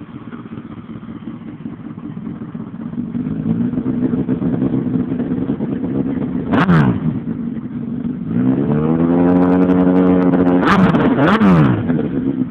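A Honda CBR1000RR's inline-four engine, heard through an aftermarket stainless-steel Varana Moto exhaust, is revved from idle. It gives one quick blip about seven seconds in, then is held at higher revs with two sharp blips, and falls back toward idle near the end.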